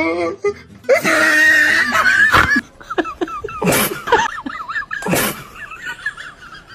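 Laughter, with a noisy sneeze-like burst about a second in. Then comes a string of short, high, wavering squeaks broken by two sharp bursts.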